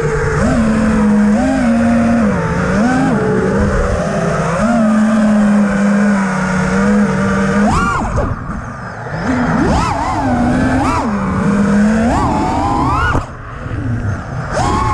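5-inch FPV quadcopter's brushless motors whining with tri-blade props, holding a steady pitch in stretches, then sweeping sharply up and back down several times as the throttle is punched and cut during freestyle flying.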